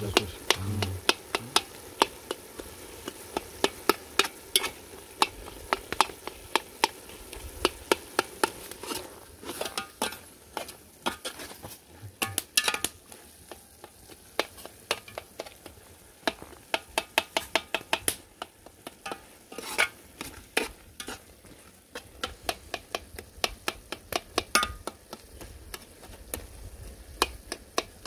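Vegetables being stirred in an aluminium pot, the utensil clicking and scraping against the pot in quick runs, over the sizzle of the vegetables frying in the dry pot.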